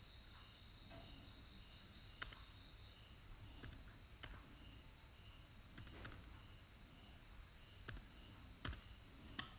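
Faint, steady chirring of crickets, with a pulsing note repeating about twice a second. Several sharp single clicks are scattered through it, keystrokes on a computer keyboard as a password is typed.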